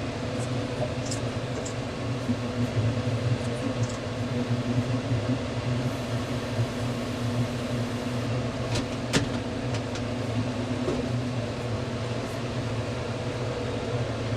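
Portable band sawmill's engine running steadily with no cut under way, a low even hum, with one sharp click about nine seconds in.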